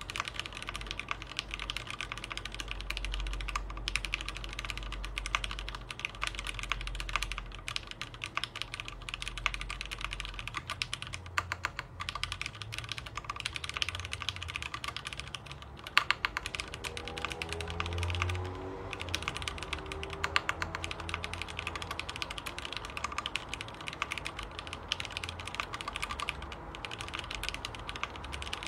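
Rapid, continuous typing on a computer keyboard: a dense, uneven stream of key clicks.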